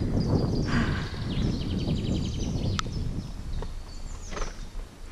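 An Appaloosa horse walking on a dirt forest track, heard from the saddle: hoofbeats and the jostle of the ride, which fade near the end, with one sharp click about three seconds in.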